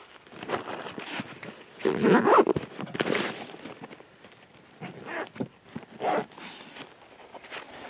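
Rustling and handling noises in several short, irregular bursts, the loudest about two seconds in.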